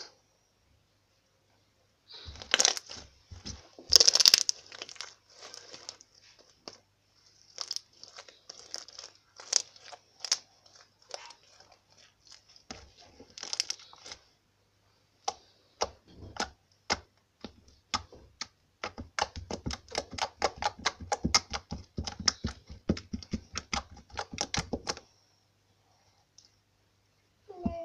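Slime being kneaded and pressed by hand on a wooden tabletop, making sticky popping and crackling sounds as fingers push into it and pull away. Two louder bursts come a few seconds in, and near the end the crackling turns fast and dense.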